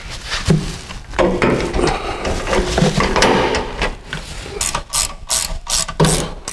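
Knocks and rattles of a lift's hydraulic power unit being handled against the steel column as it is hung on its mounting plate. About two-thirds of the way in comes a quick run of ratchet-wrench clicks as its mounting bolts are tightened.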